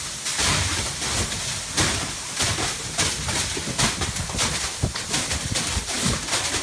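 Water rushing from the smooth-bore nozzle of a charged 2.5-inch attack hoseline, the stream spattering against the ceiling and walls with a steady hiss broken by irregular cracks and knocks.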